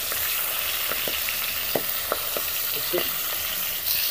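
Pieces of piyasi fish frying in plenty of hot oil in a kadhai: a steady sizzle with a few scattered pops of spitting oil.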